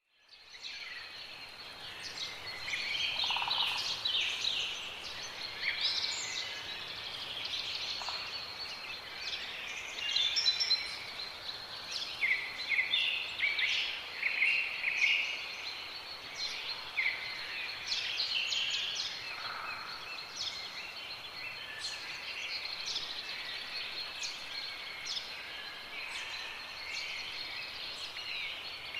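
Many small birds chirping and twittering together over a steady high-pitched tone.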